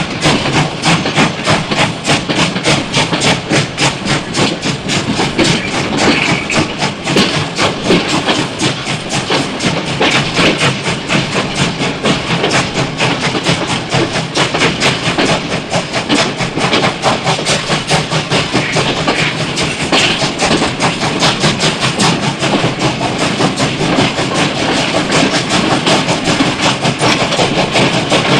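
Steam locomotive running, a fast, even rhythm of chuffs.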